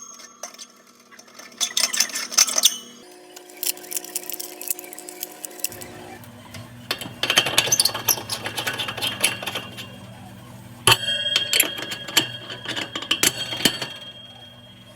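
Small glass and metal clicking, clinking and scraping inside an oven as the oven light bulb and its glass cover are handled and turned in the socket. The sound comes in several bursts of rapid clicks.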